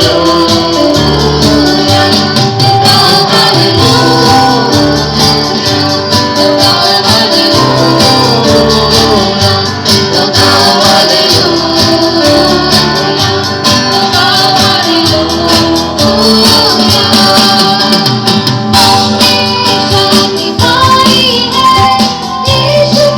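Loud Christian song with singing over a bass line.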